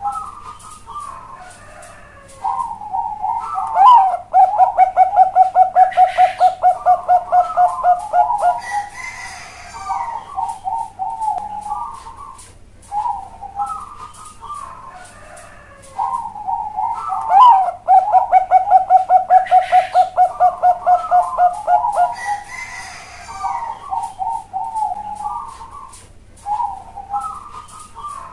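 Bangkok-bred zebra dove (perkutut bangkok) singing its cooing contest song twice. Each phrase is a fast, even run of about twenty loud coos over some four seconds, with softer broken coos before and after.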